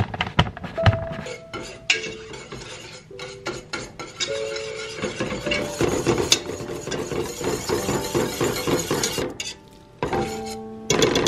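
Block of cheese rubbed over a handheld grater in short scraping strokes, then, about halfway through, a wire whisk stirring rapidly against the inside of a stainless steel pot of thick cheese sauce. Light background music plays under it.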